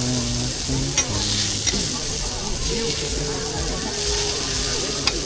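Beef burger patty frying with a steady sizzle, with a few sharp clicks about a second in, near two seconds and near the end.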